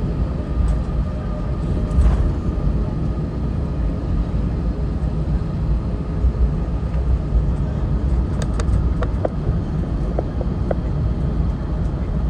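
Airbus A321 cabin noise as heard from inside during takeoff: a steady low rumble of the IAE V2500 engines at high thrust and the wheels on the runway, with a faint steady whine. A few light clicks and rattles come in the second half.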